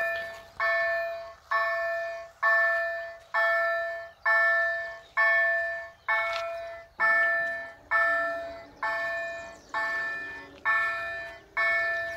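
Level-crossing warning bell of a Bombardier crossing system ringing steadily, a ding a little faster than once a second, each ding fading out before the next. From about seven seconds in a low steady hum joins as the barrier arms start lowering.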